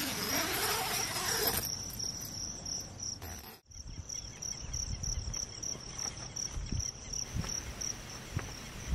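Insects chirping in a steady, high, evenly pulsing trill, with a rustle of movement in the first second or so.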